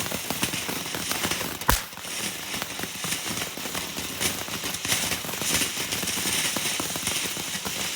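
Small consumer firework fountain burning with a dense, continuous crackle, with one sharper, louder crack about two seconds in.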